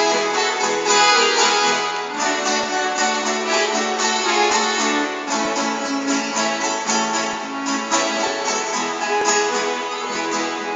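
Instrumental break of a sertanejo song played on accordion and acoustic guitar: held accordion notes over a plucked and strummed guitar accompaniment, with no singing.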